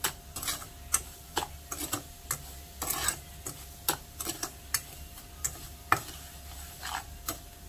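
Metal spoon scraping and clinking against a nonstick frying pan as brown sugar is stirred, in irregular strokes about one or two a second.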